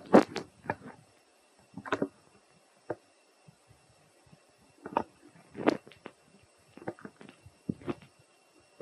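Dry leaf litter crackling and rustling in short, irregular bursts as a macaque mother and her infant shift about on it.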